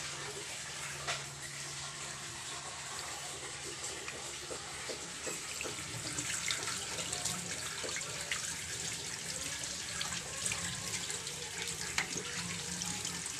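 Tap water running into a stainless steel sink and splashing over hands rinsing a skinned field rat, with scattered sharper splashes and drips; the splashing grows a little fuller about halfway through.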